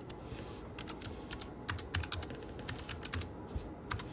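Typing on a computer keyboard: irregular runs of sharp keystroke clicks as a word is typed in.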